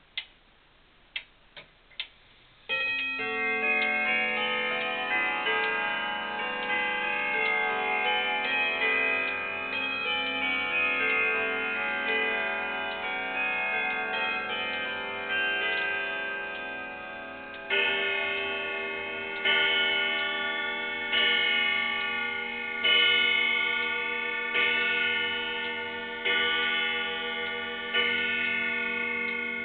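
Howard Miller triple-chime grandfather clock ticking a few times, then, about three seconds in, playing its chime melody for some fifteen seconds. It then strikes the hour seven times, about 1.7 seconds apart, each stroke ringing on.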